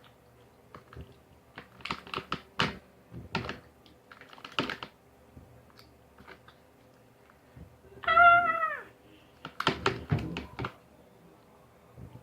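Homemade slime being squeezed and kneaded by hand: bursts of wet, sticky clicks and crackles. About eight seconds in comes one short, high call that falls in pitch, the loudest sound here.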